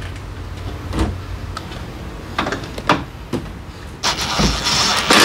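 Hand work on parts and tools: a few separate sharp clicks and knocks, then about a second of scraping or rustling near the end.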